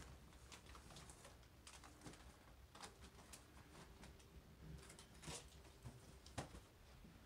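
Near silence, broken by faint scattered rustles and light clicks of a cloth gift sack and wrapped presents being handled.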